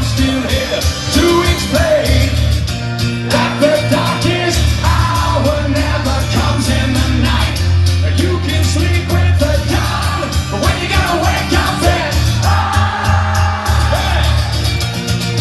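Loud live rock music from an amplified band, with singing and a heavy steady bass line.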